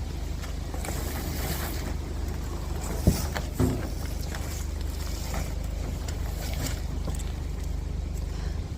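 A steady low rumble with two sharp knocks, one about three seconds in and a smaller one just after.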